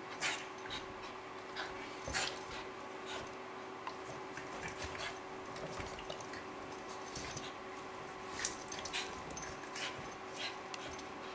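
Two small dogs play-fighting: scuffling with short sharp snaps and yips scattered throughout, the loudest about a third of a second in, around two seconds in and near the end.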